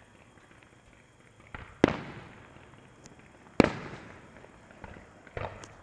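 Fireworks going off: three sharp bangs about two seconds apart, the first the loudest, with a few smaller pops between. Each bang trails off in a short echoing decay.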